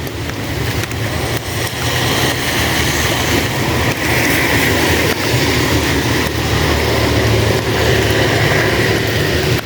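Heavy rain falling steadily, with a low rumble underneath that grows louder about two seconds in.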